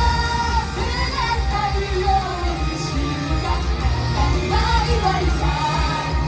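Live pop-rock song: singing over a loud backing track with a heavy, pulsing bass.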